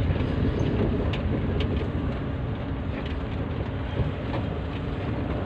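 Car engine and road noise heard from inside the cabin as the car moves slowly, a steady low rumble with a few light clicks.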